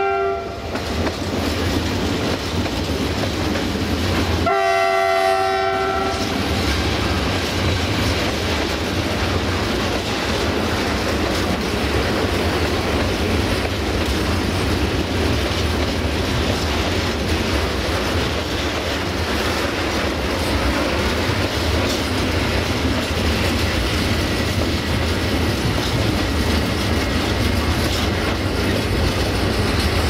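Siemens ER20 Hercules diesel locomotive's horn: a chord that ends about half a second in, then a second blast of about a second and a half just after four seconds. After it, the steady rumble and wheel clatter of open freight wagons rolling past.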